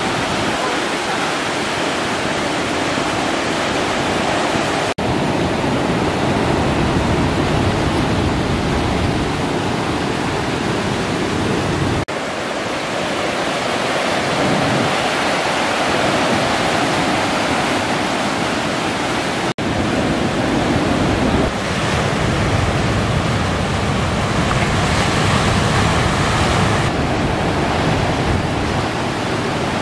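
Big ocean waves breaking and white water rushing: a loud, steady surf roar, broken three times by a brief drop-out.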